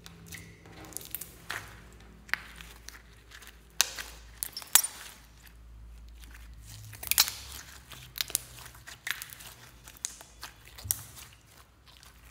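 Clear glitter slime squeezed and kneaded by hand, giving irregular sticky crackles and pops, with a few sharper snaps about five and seven seconds in.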